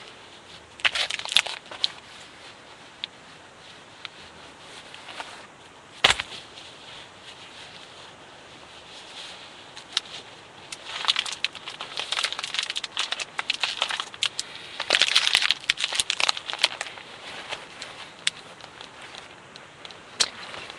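Intermittent rustling and crinkling with scattered sharp clicks, one loud click about six seconds in and denser bursts of rustling in the second half.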